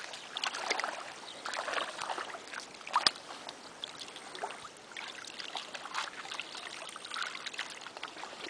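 Shallow water splashing, sloshing and trickling as a carp sling is dipped into the lake and a carp is handled in it, with one sharp smack about three seconds in.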